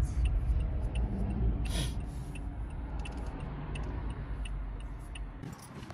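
Car cabin sound as the car slows to a stop: low road and engine rumble fading and dropping away about five and a half seconds in. A light ticking about three times a second, likely the turn indicator as it turns right, with a brief whoosh about two seconds in.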